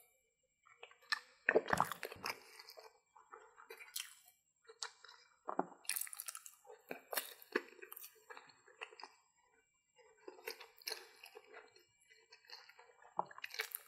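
Biting into and chewing a battered corn dog with mustard: wet mouth and chewing sounds in irregular bursts. A heavier dull knock about a second and a half in.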